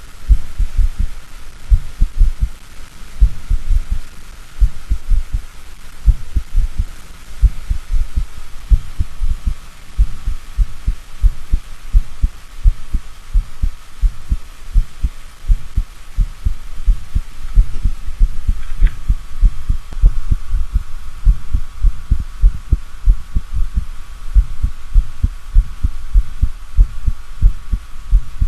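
Heart sounds: low lub-dub thuds at an uneven pace, the rhythm broken by premature extra beats (extrasystoles). A faint steady high hum runs behind them.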